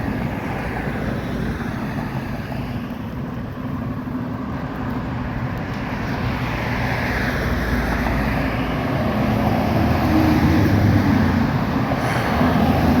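Road traffic passing on a street: a steady motor-vehicle rumble, with a vehicle growing louder through the second half.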